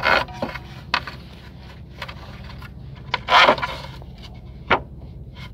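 Engine-oil dipstick of a JCB backhoe loader being slid back into its tube: a few short metal scrapes and clicks, the longest and loudest scrape about three and a half seconds in, with a sharp click shortly after.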